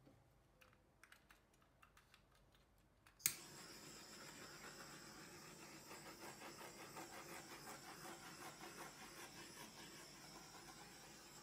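A few faint clicks, then a sharp click about three seconds in as a handheld butane torch lights, followed by the flame's steady, flickering hiss as it is passed over the wet acrylic pour paint to pop air bubbles.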